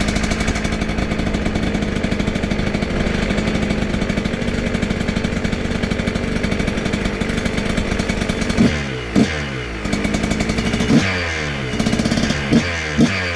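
2023 KTM 125 XC two-stroke single running through a new FMF Factory Fatty expansion chamber and Turbinecore 2.1 silencer. It holds a steady fast idle, then from about two-thirds of the way in it is blipped up and down in a series of sharp revs.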